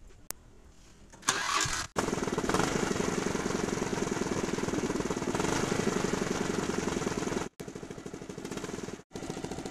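Scooter's single-cylinder engine running with its exhaust blowing through an empty drink can fitted over the silencer outlet, a home-made change meant to make it sound like a KTM motorcycle. It comes in loud about a second in with a fast, even exhaust beat, and after two brief dropouts near the end it runs on somewhat quieter.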